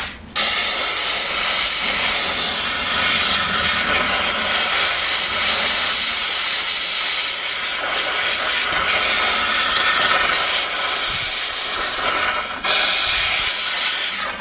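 Steam cleaner's jet hissing steadily as it blasts oily crud and rust out of a sewing machine's workings. The hiss breaks off for a moment near the end and starts again.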